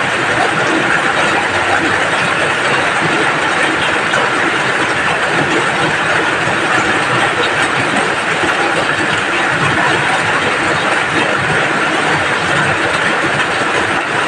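Rain falling steadily, a dense even hiss with no let-up.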